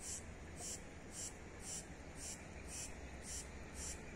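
An insect calling in short, high-pitched pulses, evenly repeated about twice a second.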